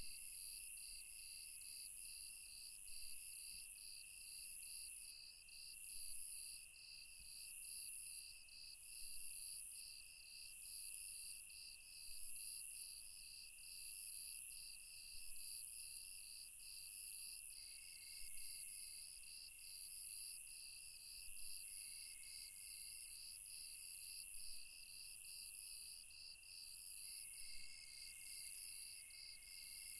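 Night-time chorus of crickets and other insects in several overlapping layers: a pulsing chirp about twice a second over a steady high trill, and a very high buzzing that swells and fades about every second and a half.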